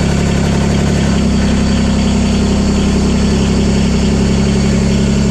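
John Deere 332 garden tractor's Yanmar three-cylinder liquid-cooled diesel running at a steady, even speed.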